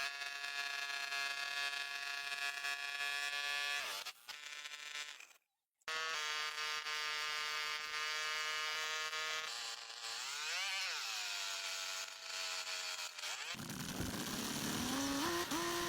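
Steady whine of a small motor, like a power tool, that cuts out briefly about five seconds in and swoops up and back down in pitch past the ten-second mark. Near the end it gives way to a lower mechanical hum that steps up in pitch.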